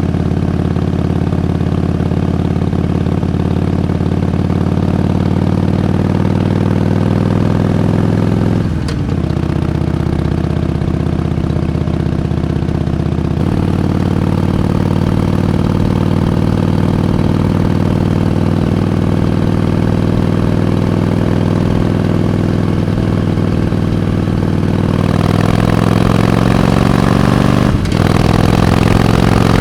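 Harley-Davidson Iron 883's air-cooled V-twin engine running under way. Its pitch creeps up and drops at a gear change about nine seconds in, holds steady, then climbs harder and drops at another shift near the end.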